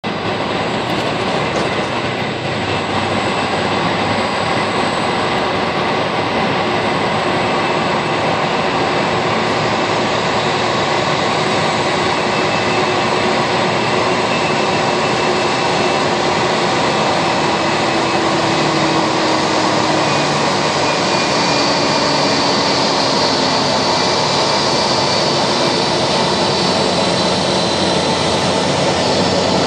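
Airbus A320 jet engines at taxi idle: a steady rush with a high whine that strengthens in the last third, growing slightly louder as the airliner taxis closer.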